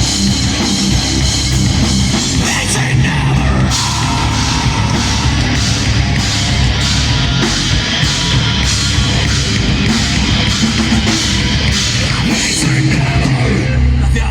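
Live heavy metal band playing loud: distorted electric guitars and bass over a drum kit, with cymbals and snare hitting on a steady beat.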